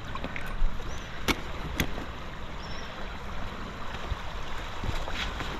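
River water rushing steadily around a midstream rock, with a few sharp clicks or knocks about a second in and again near the end.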